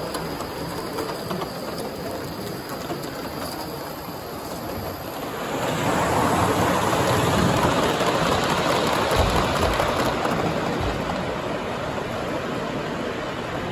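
Gauge 1 live steam model locomotives running on the layout's track, a steady rushing rail noise that grows louder about five to six seconds in as a second engine passes close, then eases off.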